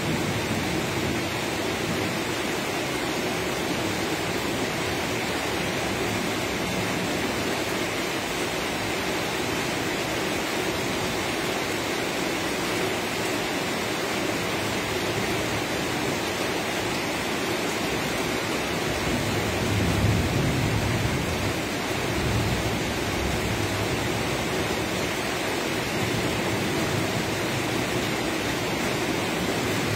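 Steady rain, a dense even hiss. A low rumble of thunder swells and fades about two-thirds of the way in.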